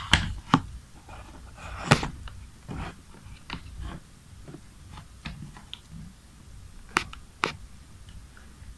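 Scattered clicks and knocks as a charger's cables and power plug are handled and plugged in on a wooden desk. The sharpest click comes about two seconds in, and a pair of clicks comes near the end.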